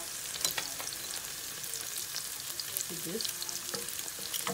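Chopped onion frying in hot oil in a pan: a steady sizzle with scattered sharp crackles and pops.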